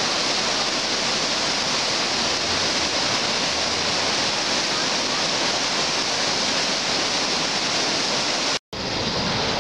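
Swollen, muddy river in spring flood rushing over rocks, a steady loud rush of water. It cuts out for an instant near the end, then resumes.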